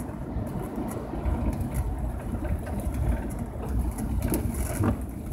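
Steady low rumble of a car's engine and tyres on a wet road, heard from inside the cabin, with a windshield wiper sweeping across near the end.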